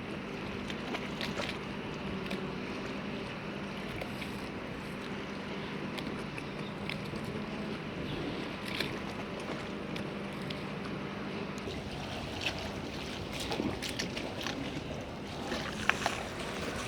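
Port ambience: a boat's engine humming steadily, with scattered small clicks and knocks that come more often after about twelve seconds in.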